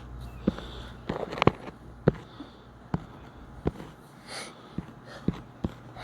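Sharp, irregular taps of a stylus on a tablet touchscreen, about ten in six seconds, over a low steady hum. A short breathy hiss, like a sniff, comes about four seconds in.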